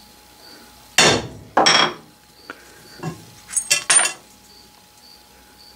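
A brass hammer strikes a number stamp once, a single sharp blow about a second in that drives the numeral zero into a lathe dial blank resting on a lead plate, followed half a second later by a second knock. Near four seconds come a few light metallic clinks as the stamp and the aluminum jig are handled.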